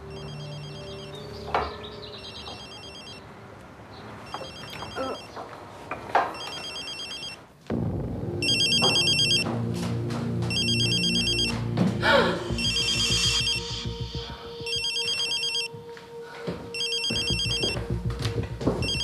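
Mobile phone ringing with a high electronic ringtone, in short bursts about every two seconds. Low sustained background music comes in about eight seconds in.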